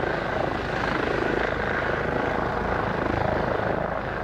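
Boeing 777-300ER on final approach, its GE90 jet engines running at approach power: a steady, even jet noise with no breaks.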